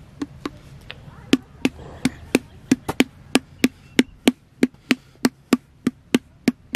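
A potter's flat wooden paddle beating the outside of an unfired clay pot to shape it. It makes sharp, regular knocks about three a second, with a brief pause about a second in.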